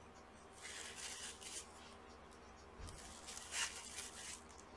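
Dry cotton swab rubbing old thermal paste off a laptop chip die: faint scratchy rubbing in two short spells, about a second each, the second one louder.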